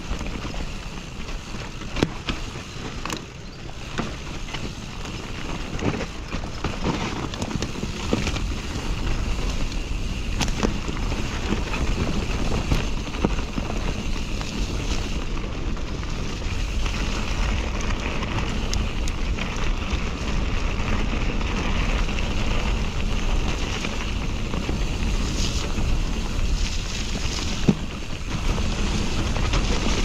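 Nukeproof Mega enduro mountain bike descending a dirt forest trail: tyre noise over the ground under a steady rush of wind on the microphone, with frequent sharp knocks and rattles from the bike over bumps and roots, a louder knock about two seconds in and another near the end.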